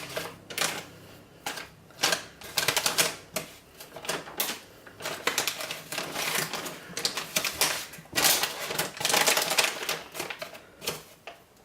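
An icing spatula scraping, tapping and clicking irregularly as it spreads and smooths thick, marshmallow-like hot process soap.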